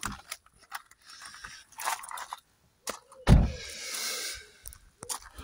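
Someone climbing out of a car: rustling and small clicks, with one heavy thump a little over three seconds in, followed by about a second of rustling.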